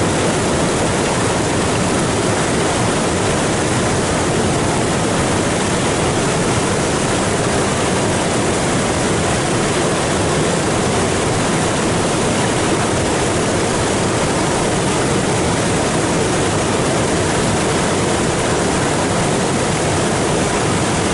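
Muddy floodwater pouring over a low limestone waterfall and sheeting across the rock ledge: a loud, unbroken rush of water.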